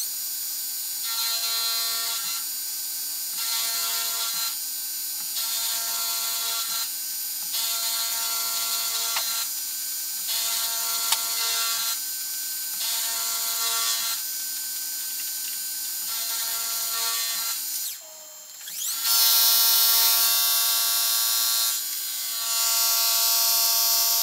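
Milling machine spindle driving a 15/32-inch end mill through a bronze crosshead casting, cutting a slot. A steady motor hum under a whirring cutting tone that swells and fades about every second and a half. About 18 seconds in the sound dips briefly, then returns louder and brighter.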